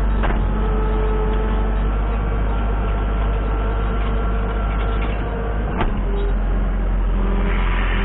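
Tractor engine running steadily, heard close up from the machine, with two sharp metallic knocks: one just after the start and one about six seconds in.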